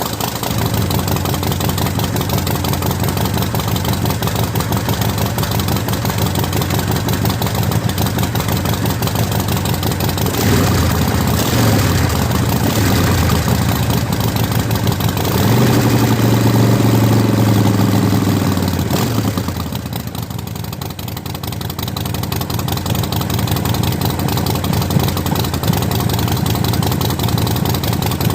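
2007 Harley-Davidson Sportster 1200 Custom's Evolution V-twin idling just after start-up, run to circulate fresh engine oil after an oil change. The throttle is raised briefly about ten seconds in and held higher for a few seconds about fifteen seconds in, then it settles back to a lower, quieter idle.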